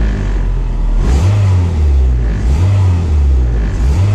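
1993 Honda Civic del Sol's four-cylinder engine idling while it warms up, heard from inside the cabin. The idle speed rises and dips slightly every second or so.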